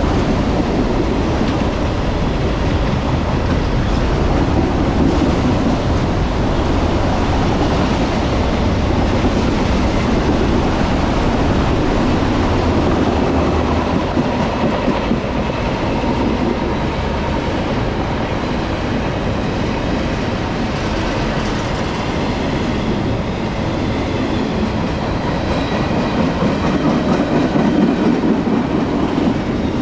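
Freight cars rolling past on steel wheels, a steady rolling noise of an intermodal train's well cars. For the first half an autorack train passes the other way on the next track.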